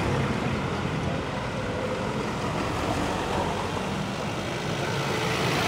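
Road traffic: cars and SUVs driving past on asphalt, a steady run of engine and tyre noise.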